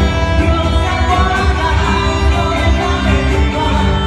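Live band music amplified through a PA system: acoustic and electric guitars over a steady low beat, with a singer.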